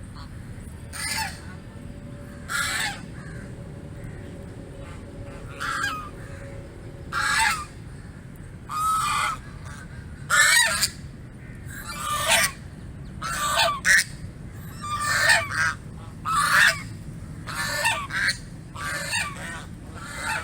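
A goose honking repeatedly: about fifteen short honks with irregular gaps, coming closer together in the second half.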